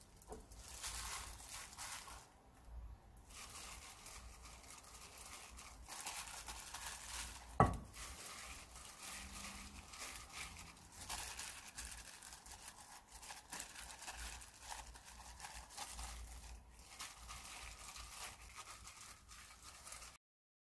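Crinkling of a disposable plastic glove and rustling of seasoned dried radish greens and shiitake mushrooms as a gloved hand spreads them over rice in a rice cooker's inner pot. A single sharp knock about seven and a half seconds in.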